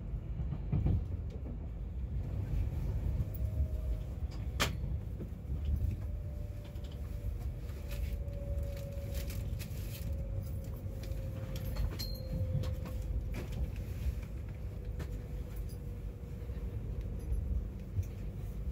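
Passenger train heard from inside the carriage: a steady low rumble of the wheels on the rails, with small creaks and rattles of the carriage and a sharp click about four and a half seconds in. A faint whine sits over the rumble, drifting slightly lower in pitch between about six and fourteen seconds in.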